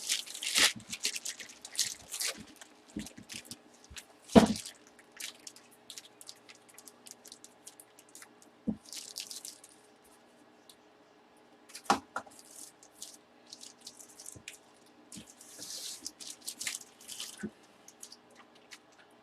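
Trading cards and their plastic holders handled on a table: scattered small clicks and taps, a few soft rustling swishes, and one louder knock about four seconds in.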